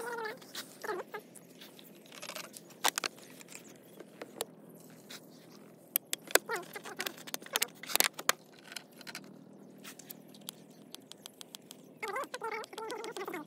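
Hands handling a portable sprayer's hose fittings and a plastic bottle: scattered sharp clicks and knocks with light rustling, the engine not running.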